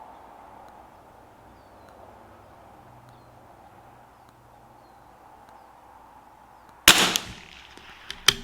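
A single .22 LR shot from a CZ 457 AT-ONE bolt-action rifle, one sharp crack near the end, with a short sharp click just over a second later.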